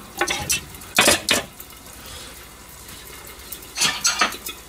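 Metal pan lid lifted off a frying pan and set down on another pot, with a ladle clinking against the pan. The clattering comes in three short spells: just after the start, about a second in, and near the end.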